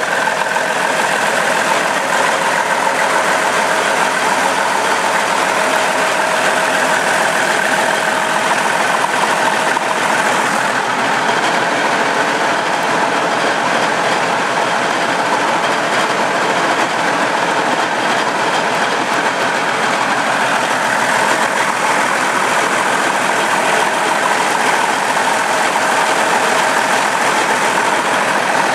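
Deutz BF6M1015 V6 diesel engine being spun by a run-in test stand without firing, for its preliminary break-in: a loud, steady, fast mechanical clatter with a few steady whining tones over it.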